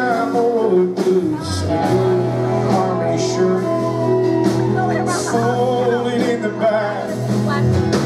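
Live country band music with a male voice singing over a steady bass and guitars.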